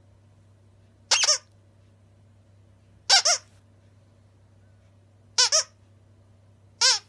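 Squeaker in a plush dog toy squeezed four times, each squeeze giving a quick high-pitched double squeak, about every two seconds.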